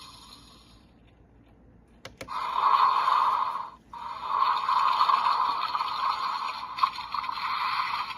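A click, then a steady rushing hiss from the Memorial Gatcha Igniter toy's small speaker, a noise-like sound effect that breaks off briefly and resumes.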